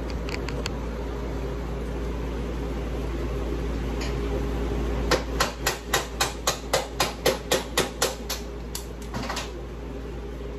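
A rapid series of sharp metal hammer blows on a mower deck mandrel (spindle) assembly, about four a second for some three seconds and then a few more. A steady shop hum runs underneath.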